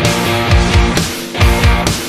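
Rock music with distorted guitars and a steady drum beat.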